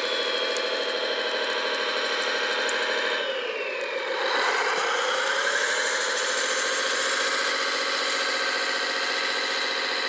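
Radio-controlled Liebherr 741 crawler dozer model running as it pushes snow with its blade, giving a steady engine-like drone. The pitch sags about three seconds in and climbs back a second or so later.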